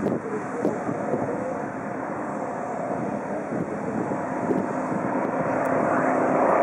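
Propeller aircraft engines droning steadily during an aerobatic display, the sound slowly growing louder.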